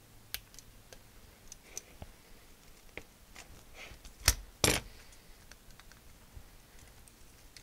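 Scattered small clicks and plastic knocks from side cutters snipping a cable tie and from handling the circuit board and plastic mechanism of an Atari XC12 cassette drive. The loudest are two knocks close together a little over four seconds in.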